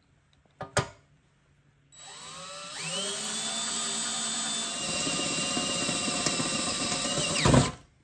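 Cordless drill boring a pilot hole into the steel plate of a tire step. After a short click about a second in, the motor spins up with a rising whine about two seconds in and runs steadily as the bit cuts. It gets briefly louder just before it stops near the end.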